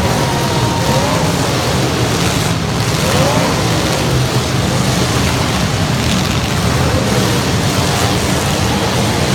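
Truck engine running loud and steady under heavy load, with a few faint tones briefly gliding up and down over it.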